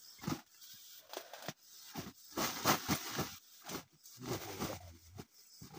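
Cassava roots being picked from a pile and dropped into a woven sack: a string of irregular knocks and rustles of roots and sack.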